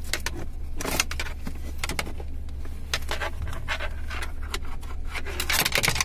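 Fingers handling the plastic mode-dial mechanism and control cable of a car AC control panel: scattered small plastic clicks and rubbing, busiest near the end, over a steady low hum.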